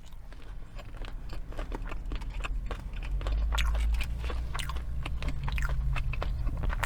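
Close-miked chewing and biting of fast food, with many small crunches and mouth clicks, over a low rumble that swells about three seconds in.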